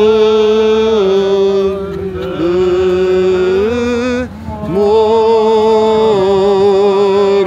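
Romanian Orthodox liturgical chant sung by voices: long held notes with a steady lower tone beneath the melody, in two phrases with a short break a little past four seconds in.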